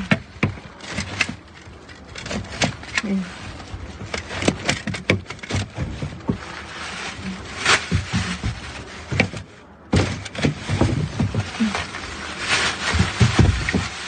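Rummaging through trash in a dumpster: paper and plastic bags rustling and crinkling, with many short knocks and clacks from the grabber pole and bags bumping against the bin.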